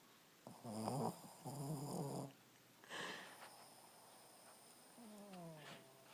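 A sleeping pet snoring: two pitched snoring breaths back to back in the first two seconds, a short higher snuffle about three seconds in, and a breath that falls in pitch near the end.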